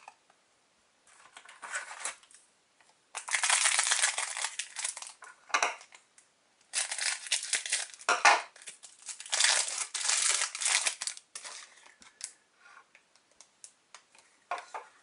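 Trading-card booster pack wrapper being torn and crinkled, in three bursts a few seconds apart, with light rustling and ticking of cards in between.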